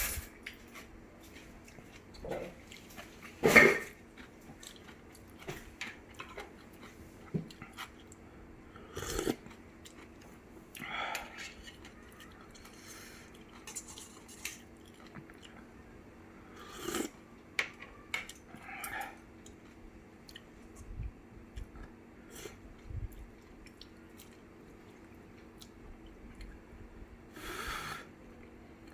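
A person eating instant ramen: chewing and slurping noodles, with utensils clinking on the dish, in short separate bursts every few seconds. The loudest comes a little over three seconds in.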